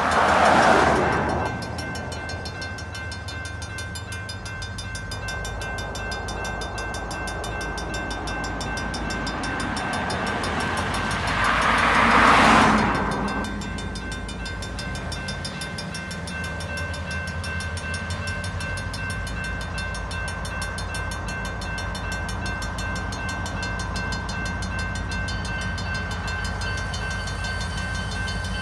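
Railroad grade-crossing bell ringing steadily while two vehicles drive past on a wet road, loudest about a second in and again around twelve seconds in. In the second half a low diesel rumble builds as the approaching SD40-2 locomotive leading the freight draws nearer.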